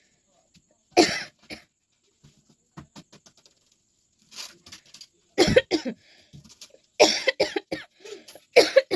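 A person coughing in short, separate bursts: one loud cough about a second in, then a string of coughs in the second half, with a few softer coughs and throat sounds between.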